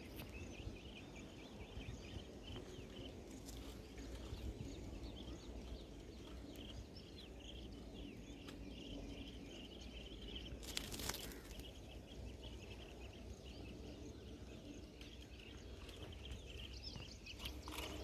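Faint outdoor ambience: small high chirps repeat throughout over a low steady rumble, with a brief rustle about eleven seconds in.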